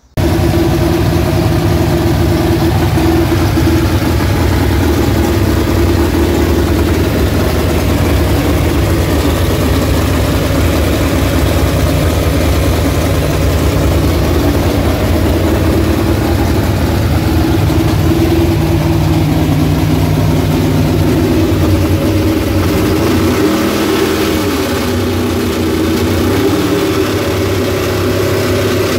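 Freshly built Ford 351 Cleveland V8 with a four-barrel carburetor running steadily on an engine stand during its first break-in run. About 23 seconds in, the engine speed dips and wavers, then settles again.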